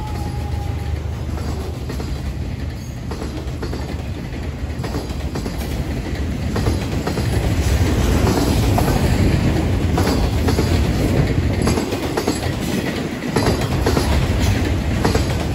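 Loaded autorack freight cars rolling past: a steady wheel-and-rail rumble with clickety-clack of wheels over rail joints, louder from about seven seconds in. The last of a locomotive horn note fades out in the first second.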